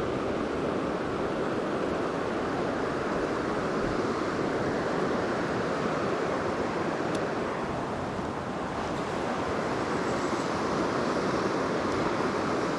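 Steady rush of a shallow river flowing over gravel, with a faint click about seven seconds in.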